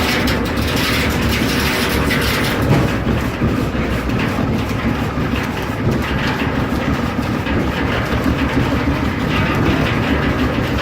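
1870s-era sawmill machinery running, a steady low rumble with a continuous fast clatter of moving parts.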